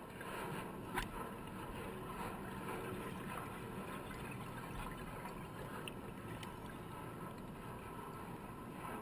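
Underwater noise picked up by a diver's camera in its housing: a steady muffled rush, with one sharp click about a second in.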